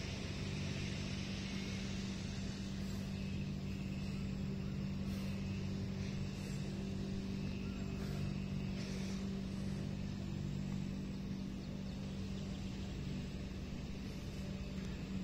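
Grass trimmer engine running steadily, its note holding one pitch.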